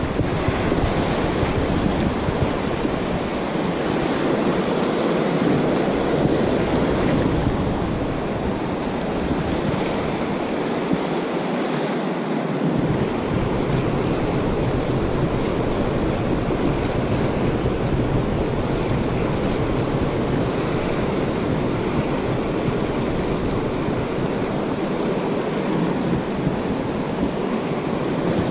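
Fast, shallow river rushing over rocks: a steady hiss of moving water heard close by. A low rumble of wind on the microphone comes and goes beneath it.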